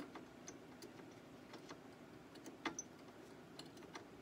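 Faint, irregular small clicks and scrapes as a preamp tube's pins are worked against its socket in a guitar amp chassis, not lining up to seat.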